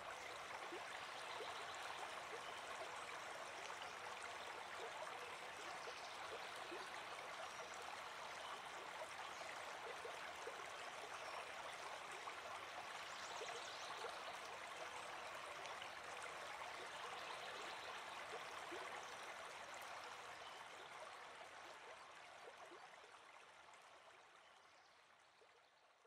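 Fast stream water rushing and splashing over rocks, a steady wash of sound that fades out over the last several seconds.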